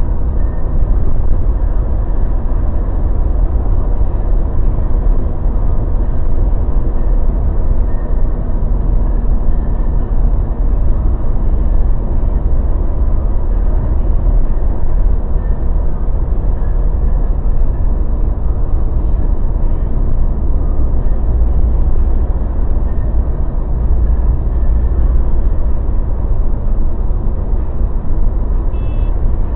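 Mazda BT-50 pickup driving: steady engine and road noise with a heavy low rumble, unbroken by any distinct clunks.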